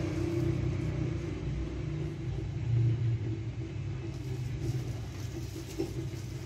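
Steady low hum of bakery machinery running, with a brief knock about six seconds in.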